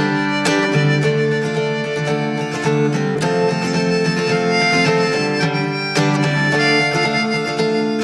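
Background music: an acoustic tune with harmonica and guitar, in a bluegrass style.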